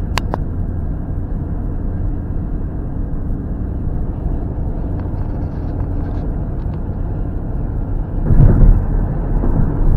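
Steady road and engine rumble heard inside a moving car's cabin. There is a sharp click just after the start, and the rumble swells louder for about half a second around eight seconds in.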